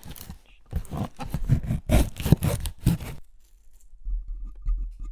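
A cardboard box being cut open with a knife: a couple of seconds of close, crackly scraping and tearing of packing tape and cardboard, then quieter, with a low rumble of handling near the end.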